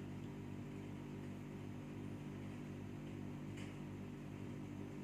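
Steady low machine hum in the room, even throughout, with a faint tick about three and a half seconds in.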